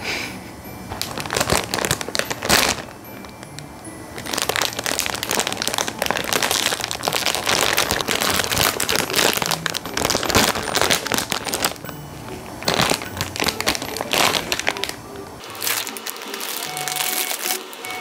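Plastic wrapper of an instant-noodle multipack crinkling and crackling as it is pulled and torn open by hand, heaviest through the middle, over light background music.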